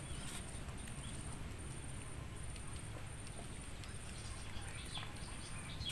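Outdoor ambience: a steady low rumble with a faint high-pitched chirp repeating in short pulses, and a few faint clicks.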